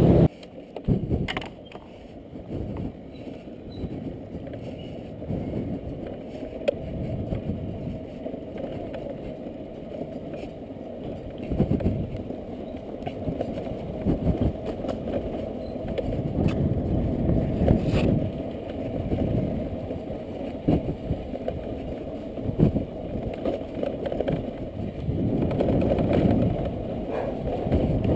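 Riding noise of a small automatic scooter on a rough concrete lane: a low, uneven rumble of engine, tyres and wind buffeting the microphone, with a few sharp knocks from bumps.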